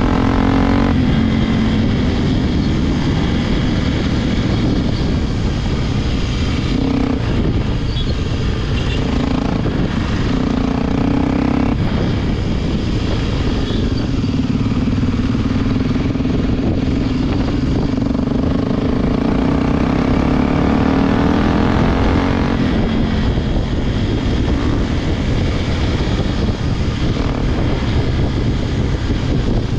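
Single-cylinder engine of a Honda XR Tornado dual-sport motorcycle running under way, its pitch shifting up and down several times as the throttle and gears change.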